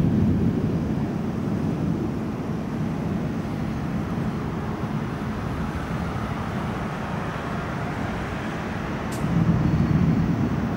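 Distant thunder rolling as a low rumble, swelling near the start and again about nine seconds in.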